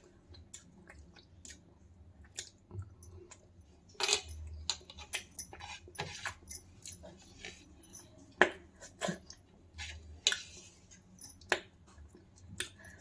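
Close-up eating sounds of rice and egg curry eaten by hand: irregular wet mouth smacks and chewing clicks, several to a second at times.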